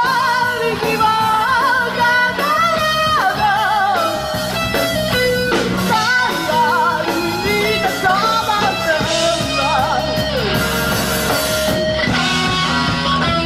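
Live rock band playing: a woman singing the lead with wavering sustained notes over electric guitars and a drum kit. The singing stops about ten seconds in and the band plays on.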